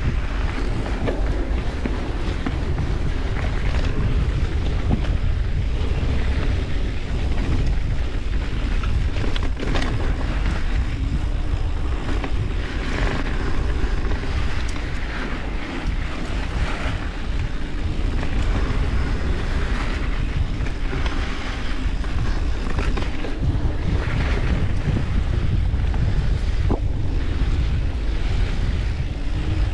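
Wind buffeting the microphone of a mountain biker riding fast down a dirt trail, over a steady rumble of tyres and bike on the rough ground, with a few sharp knocks along the way.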